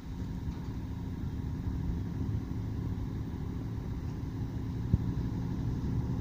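An engine running steadily at an even low rumble, with one short sharp knock about five seconds in.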